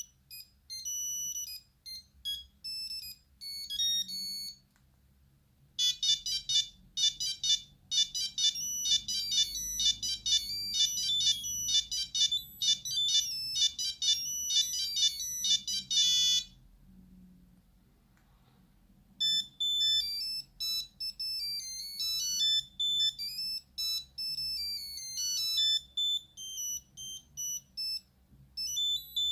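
Nokia 8210 mobile phone playing its built-in monophonic ringtones: three beeping melodies one after another, the middle one fast and dense. There is a short gap after the first and a gap of two or three seconds after the second.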